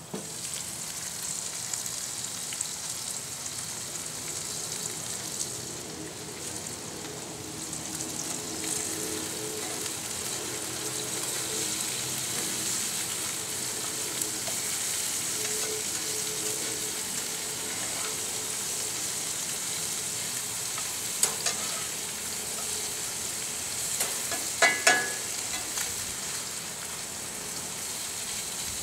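Dove meat with onions and vegetables sizzling on a gas grill, the sizzle coming up suddenly as the lid is raised. A few sharp clicks of a metal utensil against the cookware about two-thirds of the way through.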